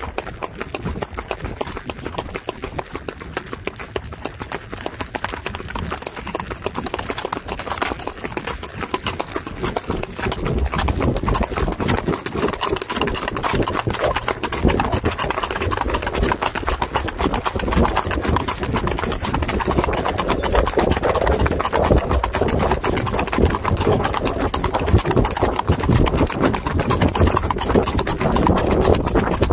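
Horses' hooves clip-clopping on an asphalt road in a fast, close-set run of strikes, growing louder about a third of the way in.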